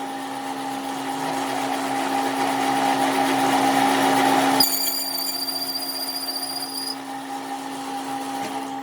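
A power tool or machine-tool motor running steadily with a held hum. A rising hiss of cutting or grinding builds and stops abruptly about four and a half seconds in, leaving the motor running with a high thin whine.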